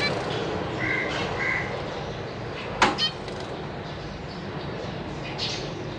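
Zebra finches giving short nasal calls, two close together about a second in, with a sharp click near the middle, over steady background noise.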